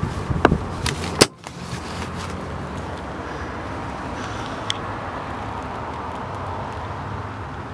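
A few knocks as the Pajero's carpeted rear floor hatch cover is handled, ending in one sharp knock about a second in as it shuts. Then comes a steady low hum, consistent with the turbo-diesel engine idling.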